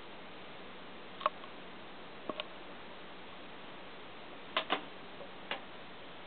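Six short, sharp clicks and taps over a steady hiss: one about a second in, two close together just after two seconds, two more about four and a half seconds in, and a last one near the end.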